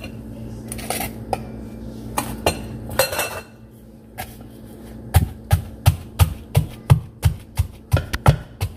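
A few clicks and taps as fried plantain slices are dropped into a wooden mortar with metal tongs. Then, about five seconds in, a wooden pestle starts pounding the plantain in the wooden mortar: steady heavy thuds, about three a second.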